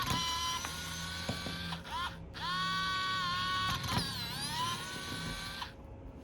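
Small electric precision screwdriver motor whining in several runs, stopping and restarting a few times, its pitch sagging under load about four seconds in before it cuts off near the end.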